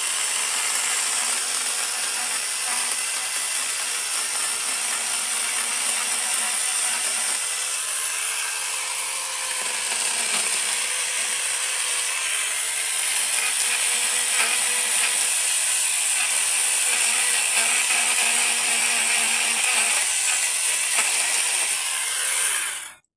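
Kamolee 8-inch cordless brushless mini chainsaw running steadily while cutting bamboo; the sound cuts off suddenly near the end.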